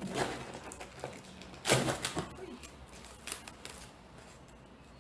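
Handling noise from books and their packaging: a few short knocks and rustles, the loudest about two seconds in.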